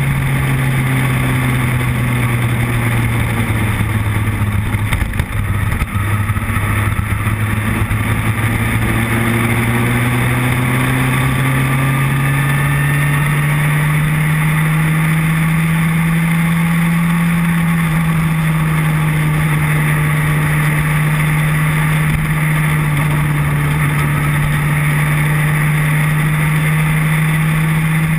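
Motorcycle engine running steadily at cruising speed with wind rush over the microphone; the engine note climbs slowly through the middle and eases a little near the end, with a brief dip about five seconds in.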